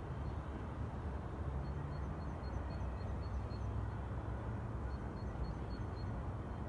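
Steady low outdoor rumble, with a small bird's short, high chirps repeating about four times a second in two runs.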